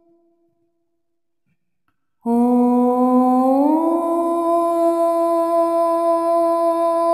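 Background music: near silence at first, then about two seconds in a single long humming note comes in, slides up in pitch and holds steady.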